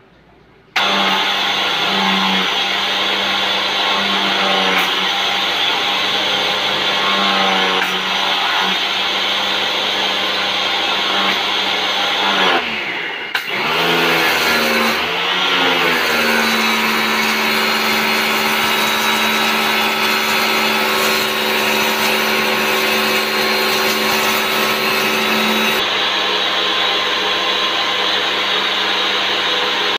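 Yojimbo 1400 W electric pressure washer running, its motor and pump starting about a second in with a steady whine and the hiss of the spray. A little before halfway the motor sags in pitch twice and picks back up.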